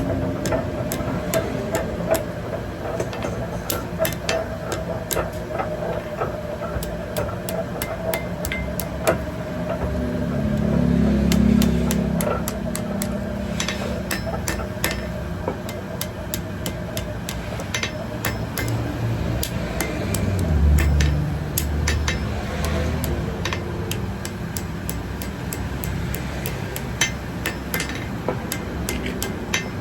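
Blacksmith's hammer striking metal on an anvil: many irregular blows throughout, over a steady hum that fades about halfway through.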